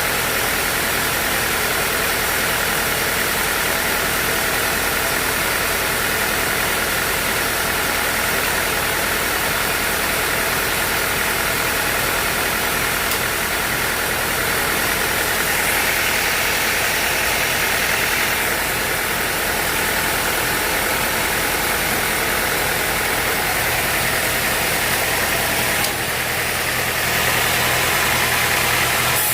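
Sawmill engine running steadily under a continuous hiss of machinery, the sound swelling slightly for a couple of seconds about halfway through.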